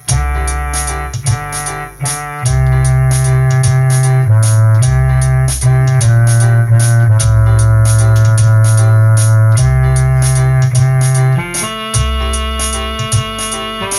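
Electronic keyboard playing held chords over a deep bass line, backed by a steady drum beat with a high ticking cymbal at about two or three hits a second.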